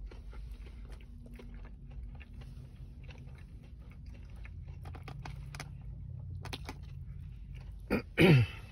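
Close-up chewing of a crispy breaded fried chicken finger, with many small crunches of the breading. Near the end comes one short, loud vocal sound that falls in pitch.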